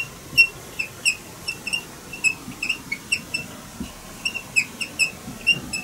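Whiteboard marker squeaking against the board while words are written: a quick, irregular run of short, high-pitched chirps, several a second.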